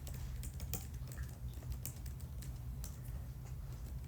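Typing on a computer keyboard: irregular quick key clicks, several a second, over a steady low hum.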